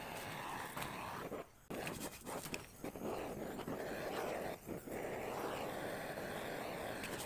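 Hissing flame of a butane cassette-canister torch burning scraps of plastic and cloth in a metal pan, with a brush scraping in the pan during the first second or so. The sound drops out briefly about one and a half seconds in.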